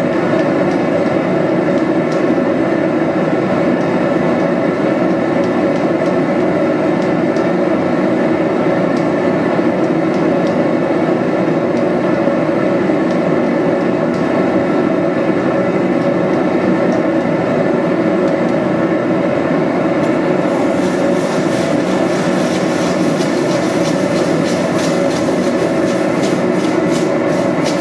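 Blacksmith's forge running with a loud, steady, even noise. A faint crackle joins in over the last several seconds.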